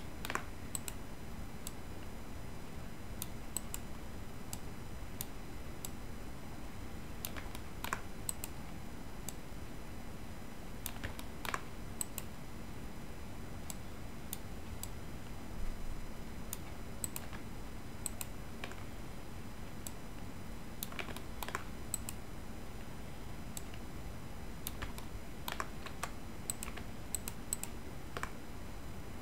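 Scattered computer keyboard keystrokes and clicks at an irregular pace, a few at a time, over a faint steady hum.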